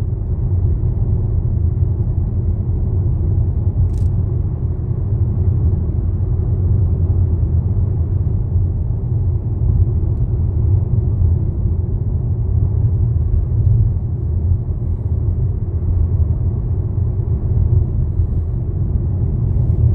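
Steady low road-and-engine rumble heard from inside a moving car's cabin, with a single short click about four seconds in.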